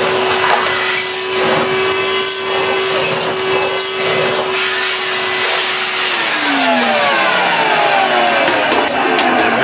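Vacuum cleaner running with a steady motor whine as its floor head is pushed over carpet. About six seconds in it is switched off, and the whine falls in pitch as the motor spins down.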